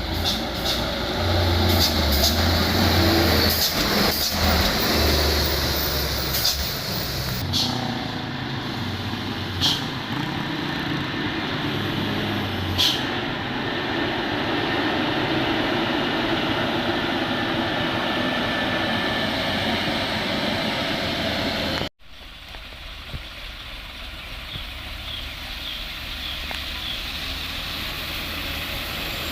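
Dump truck diesel engines running steadily, with several short, sharp air-brake hisses in the first half. The sound cuts out abruptly about two-thirds of the way through and comes back quieter.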